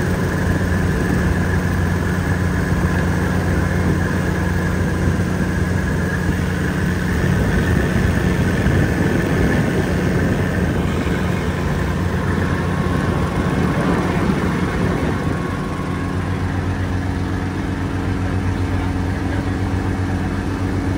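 Helicopter engine and rotor running steadily in flight, heard from inside the cabin as a loud, even drone that shifts slightly in tone about 15 seconds in.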